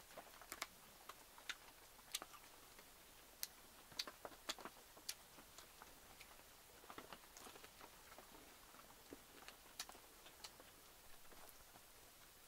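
Quiet eating sounds: faint chewing and scattered soft, irregular clicks of bamboo chopsticks against the mouth and bowl.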